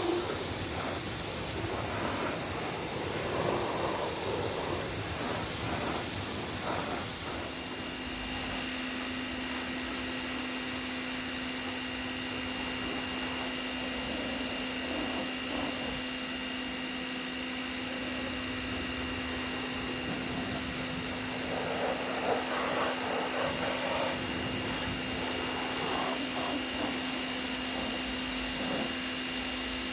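Greenworks 2000 PSI electric pressure washer spraying water: a steady hiss of the spray, joined about a quarter of the way in by a steady electric hum that holds to the end.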